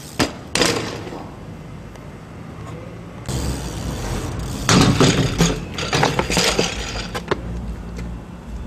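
BMX bike crashes. Two sharp hits of a bike slamming onto asphalt come near the start. About halfway through there is a louder run of clattering metal impacts as a rider on a BMX bike rides into a steel dumpster.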